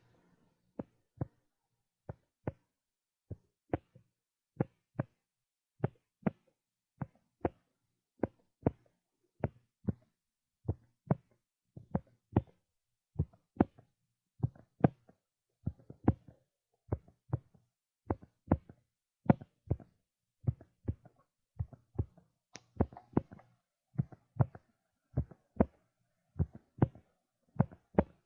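Sparse percussion of a music track: short, sharp thumps, mostly in pairs like a heartbeat, that come closer together toward the end.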